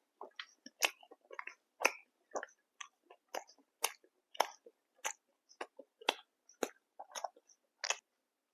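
A person chewing food close to the microphone, with short, wet, clicky chews at about two a second that stop near the end.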